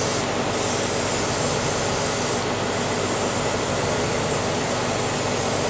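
Small airbrush compressor running steadily, with the hiss of air and colour spraying from the airbrush. The hiss dips briefly twice, about half a second and about two and a half seconds in.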